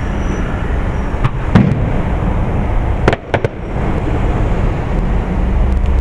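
Fireworks shells bursting in the sky: a bang about a second in, a louder one just after it, and a quick cluster of three about three seconds in, over a steady low rumble.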